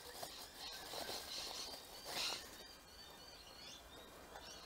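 Plastic bubble wrap crinkling and rustling as a new carburetor is unwrapped by hand, loudest about two seconds in. After that it goes quiet apart from faint high chirps.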